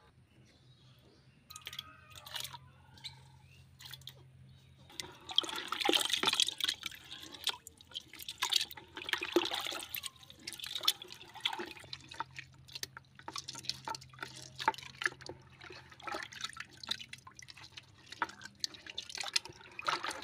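Hands sloshing and rubbing snails in a plastic bucket of water: irregular splashing and swishing, loudest from about five to twelve seconds in, then in shorter splashes.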